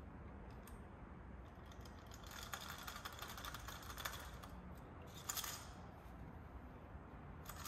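Small carburetor parts clicking and rattling in a cut-down metal soda can as they are handled and picked through by hand, with a run of light clicks in the middle and a brief louder rattle about five seconds in.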